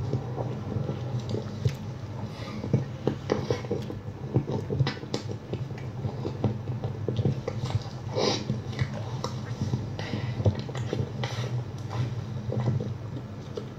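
Close-up mouth noises of a person drinking iced coffee from a plastic cup: small wet clicks, sips and swallows, with a longer, louder sip about eight seconds in. A steady low hum runs underneath.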